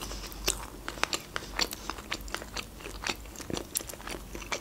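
Close-miked chewing of a mouthful of döner in bread: soft, wet mouth clicks and smacks, several a second, at an irregular pace.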